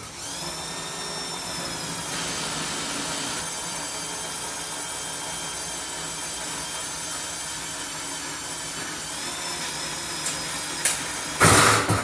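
Electric drill spinning up and drilling a hole through stainless steel sheet metal, a steady whine that wavers briefly near the end, followed by a loud clatter just before the end.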